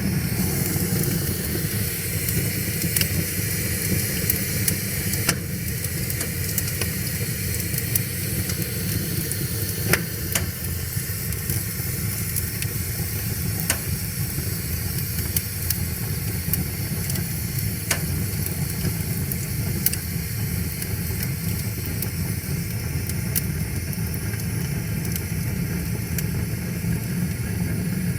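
Wood fire crackling, with scattered sharp pops every few seconds, over the steady low rush of a flowing river.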